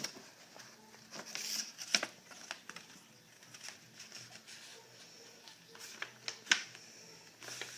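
A sheet of paper being folded and creased by hand: soft rustling with a few sharp crinkles, about two seconds in, twice more later on and once near the end.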